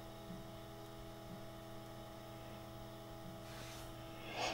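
Steady low hum with several faint steady whine tones from the running TRS-80 Model 4P, its cooling fan and floppy drive motor turning during the RAM test. A brief rustling noise comes near the end.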